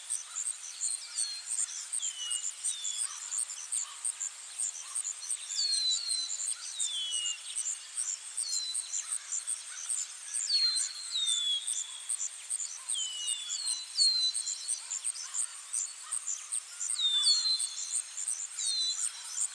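Forest ambience: a steady, high, fast-pulsing insect chirring, with birds repeatedly calling short descending whistled notes, often in quick pairs or threes.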